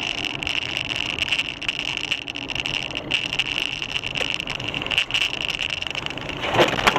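Car driving, with road and engine noise in the cabin picked up by a dash cam, a steady high whine and scattered small knocks. A louder knock or jolt comes near the end.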